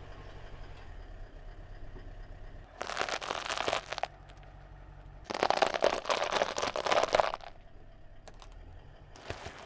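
Car tyre rolling onto piles of small dry food, crushing them in two long crackling crunches a few seconds apart, with a short third crunch near the end. A low engine rumble from the car runs under the first few seconds.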